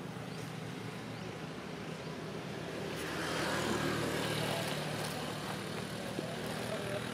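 A road vehicle passing, its noise swelling about three seconds in and then easing off, over a steady low hum.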